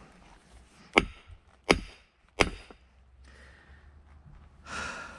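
Firewood splitting with a steel wedge being struck: three sharp blows in quick succession, each with a brief metallic ring. Near the end comes a loud breath out, then another blow.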